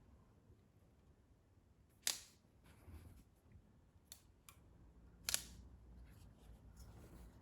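Three-shot semi-automatic rubber band pistol firing: two sharp snaps about three seconds apart as bands are released, with faint mechanical clicks between them.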